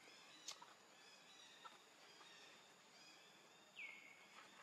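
Faint outdoor ambience with a short high animal call that drops in pitch and levels off, about four seconds in, and a sharp click about half a second in.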